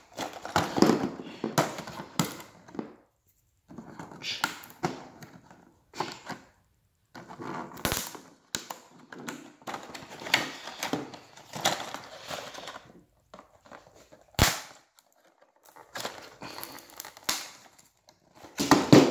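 Stiff plastic blister packaging being pried and pulled off its cardboard backing card: irregular crackling and crinkling, with two sharp snaps of the plastic, one about eight seconds in and another about fourteen seconds in.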